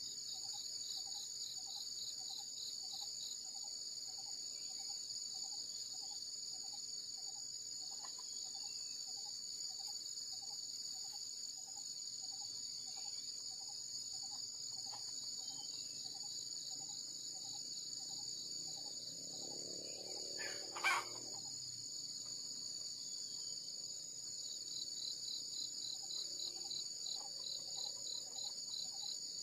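Steady, high-pitched chirring of forest insects, with a faint quick pulsing call underneath. A brief sharp sound stands out about twenty seconds in.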